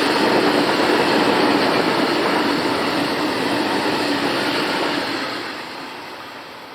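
Train running past on the track, a loud steady rumble and rush that dies away over the last couple of seconds as it moves off.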